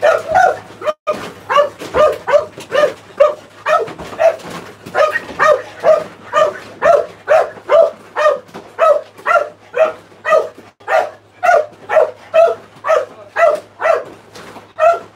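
A dog barking over and over in a fast, even rhythm, about two to three barks a second.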